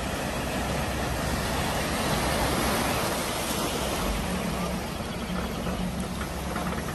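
Volkswagen Golf Cabriolet driving through a flooded ford: a steady rush and splash of water around the car, with a low engine sound underneath.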